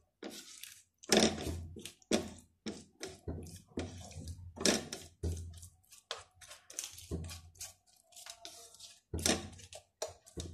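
Plastic spatula scraping and knocking against a non-stick frying pan while stirring onion and capsicum, in a run of quick, irregular strokes.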